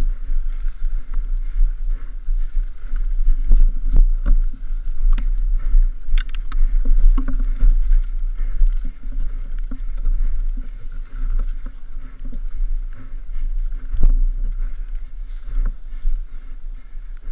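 Mountain bike running over rough trail, rattling and knocking many times over the bumps, heard from a helmet-mounted camera with a heavy low rumble of wind buffeting the microphone.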